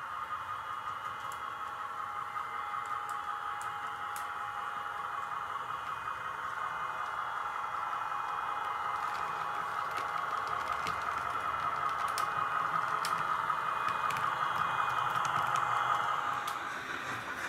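Märklin model locomotive running along the track, a steady whirring of motor and wheels with scattered light clicks, growing louder as it approaches and dropping off after it passes close by about sixteen seconds in.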